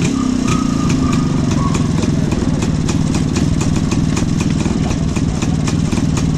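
Rajdoot 175's single-cylinder two-stroke engine idling steadily.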